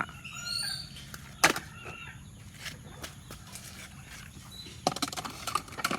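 A few short, high chirping animal calls that glide in pitch near the start, followed by scattered sharp clicks and taps, with a cluster of them near the end.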